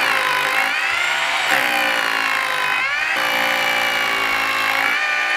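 Makita DHR202 18 V cordless rotary hammer hammer-drilling a 6 mm hole down into a concrete block. The steady whine dips in pitch and recovers about every one and a half seconds. The tool works neither easily nor with great strain.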